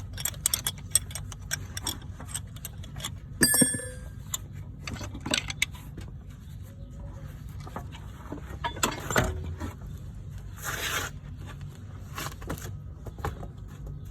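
Metal hand tools clicking, clinking and scraping on a rear brake caliper while the seized caliper piston is being worked back. One clink about three and a half seconds in rings out, and there are longer scrapes about nine and eleven seconds in.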